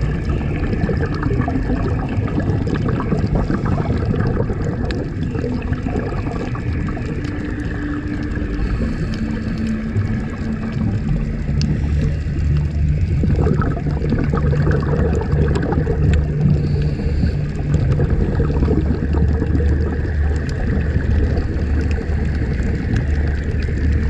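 Underwater ambience: a steady muffled rush of water with a low hum and scattered faint clicks.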